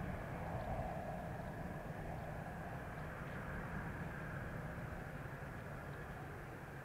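Distant Kawasaki T-4 jet trainers' turbofan engines running steadily: an even low rumble with a faint whine, easing slightly near the end.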